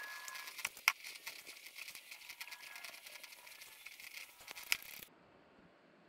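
Light clicking and rattling of tools and small metal parts being handled during workshop fabrication, with two sharper clicks about one second in and near five seconds. It cuts off suddenly shortly after five seconds, leaving only faint hiss.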